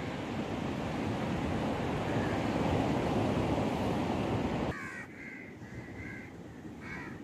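A loud, steady rush of beach wind and surf on the microphone, which stops abruptly about four and a half seconds in. Crows then caw several times, in short repeated calls.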